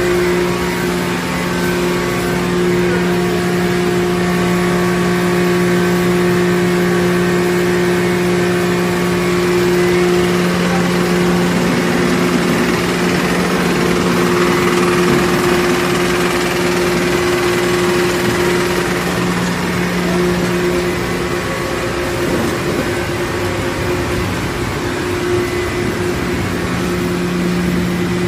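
Machinery of a plantain chip production line running: a steady, loud mechanical hum with a constant low drone and a higher tone over a noisy rush. The low drone drops away for a few seconds past the middle.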